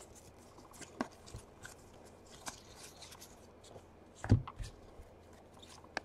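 Baseball trading cards being handled and slid one by one through the hands: faint scattered clicks and rustles, with a louder tap a little after four seconds in.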